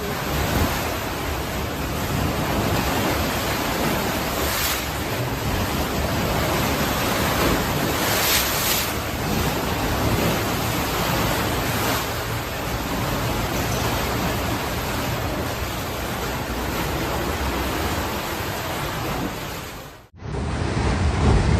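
Loud, steady rushing noise, like wind buffeting the microphone, with two brief hissing surges; it cuts off sharply near the end and gives way to a deeper, rumbling rush.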